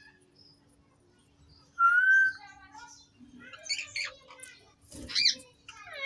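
Indian ringneck parrots calling: a loud clear whistled note about two seconds in, then a cluster of short chirps and a sharp squawk near the end.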